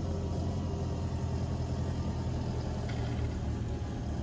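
A vehicle engine running steadily with a low, even hum.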